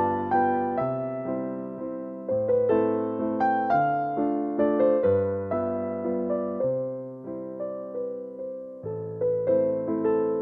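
Background music: a gentle piano or electric-piano piece, a slow melody of plucked-sounding notes that fade after each strike over sustained bass notes.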